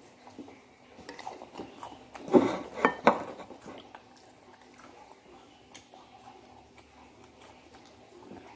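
Dishes knocking at the table: a short clatter of three or four knocks about two and a half seconds in, with scattered quieter clicks around it.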